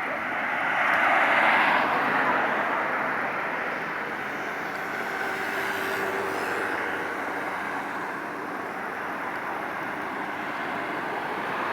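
Vehicle noise: a swell about a second in, like a vehicle passing close by, then a steady rumble of traffic.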